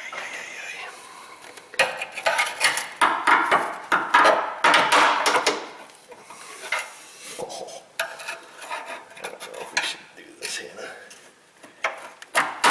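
Metal knocking and rattling, densest for a few seconds starting about two seconds in and then sparser: an engine control module being wrestled loose from its bent-up mounting in a crashed car's front end.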